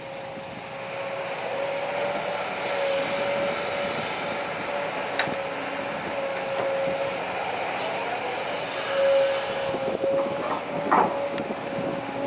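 Heavy diesel earthmoving machinery running, with a steady, slightly wavering whine and two sharp knocks, about five seconds in and near the end.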